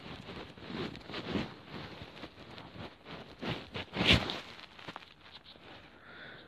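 Handling noise from a phone as it is typed on: an irregular run of soft taps and rustles, the loudest about three and a half and four seconds in.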